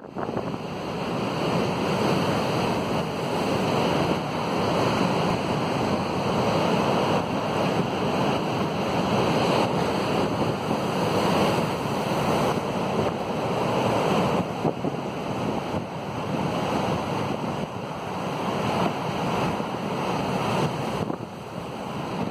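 Storm surf: heavy waves breaking and washing over a rocky shore and concrete slabs, a continuous loud rush that swells as each wave breaks. Wind gusts across the microphone.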